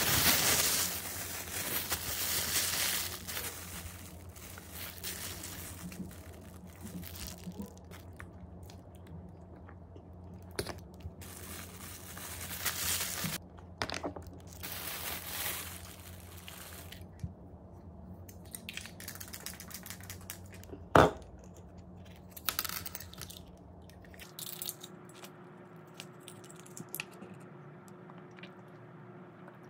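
A thin plastic bag crinkling and rustling as a bagel is pulled out and handled, loudest at the start, with scattered bites and chewing of the bagel in between. One sharp knock, the loudest single sound, about two-thirds of the way through.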